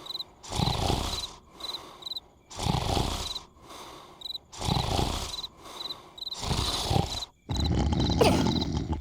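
Cartoon larva snoring: four loud, rasping snores about two seconds apart, with short high chirps in pairs between them. Near the end the snoring gives way to a louder continuous noise with a brief sliding squeak.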